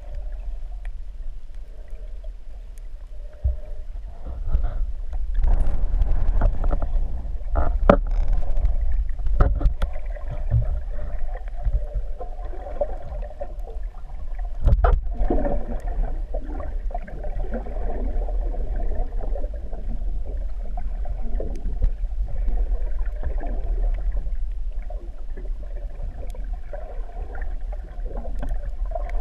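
Muffled underwater sound heard through a GoPro's waterproof housing: a steady low rumble of moving water, broken by several sharp knocks and clicks.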